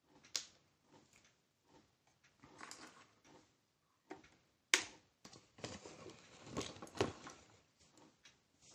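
Scattered clicks and light knocks of small parts and tools being handled and set down on a workbench, with one sharp click about five seconds in and a run of rustling, knocking handling noise after it.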